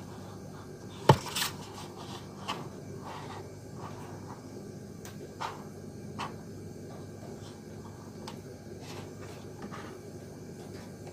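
Small paperboard box being handled and turned over on a cutting mat: a sharp knock about a second in, then a few lighter taps and rubs as it is shifted in the hands.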